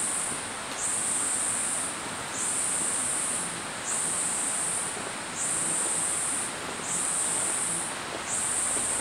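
An insect calls again and again with a shrill, high-pitched buzz, about seven times, roughly once every second and a half. Each call rises quickly at its start and then holds for about a second. Beneath it runs a steady rush of flowing water from a nearby stream.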